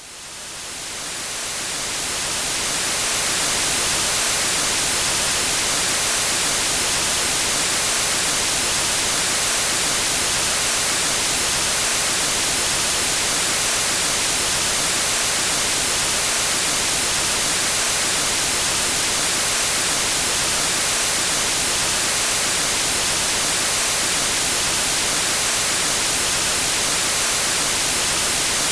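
Steady white-noise hiss like a TV tuned to static, fading in over the first few seconds and then holding even, with most of its energy in the high frequencies.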